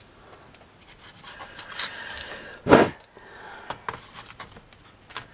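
Handling noise of polystyrene foam pieces being rubbed and scraped against a hardboard base, with one short, louder sound about three seconds in and a few light clicks.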